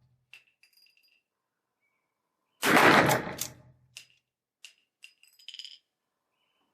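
A shot from a replica 1860 Henry rifle firing a black-powder .44-40 cartridge, about three seconds in, with a ringing tail lasting about a second. It is followed by a run of short metallic clicks and clinks as the lever action is worked.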